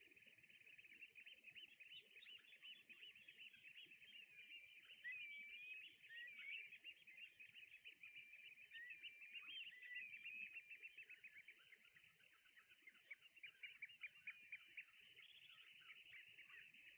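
Faint, continuous calling of a flock of brent geese and small sandpipers: many short chirps, with a few drawn-out gliding notes in the middle, all sounding thin and narrow in pitch range.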